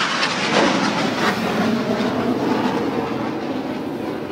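BAE Hawk Mk132 jet passing overhead: a loud jet roar that falls in pitch and slowly fades as the aircraft moves away.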